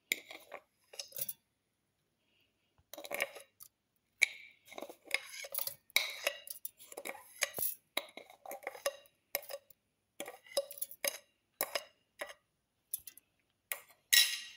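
A metal spoon clinking and scraping against a stainless-steel mixer-grinder jar in short, irregular bursts as sugar is spooned in over raisins.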